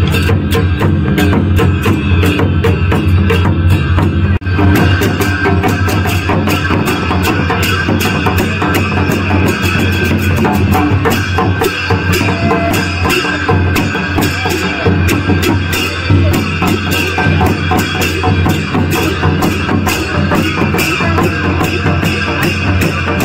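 Traditional Himachali band of large drums beaten with sticks and brass hand cymbals clashing, playing loud, fast and dense rhythmic music, with a brief break about four seconds in.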